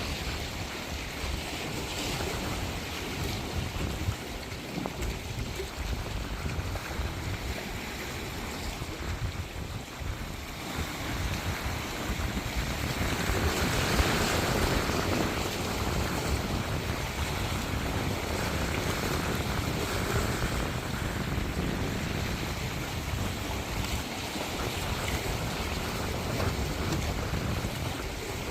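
Surf washing onto a beach, one wave surging in louder about halfway through, with wind buffeting the microphone.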